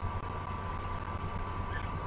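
Steady background hum and hiss from an outdoor wildlife camera's microphone: a constant low hum with a thin steady high tone over it, and no distinct event.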